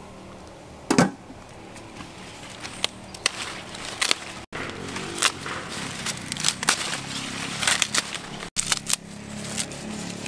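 Rustling and crackling of a bunch of fresh leafy branches being handled and stripped of their leaves, with a sharp crack about a second in and many small snaps after it.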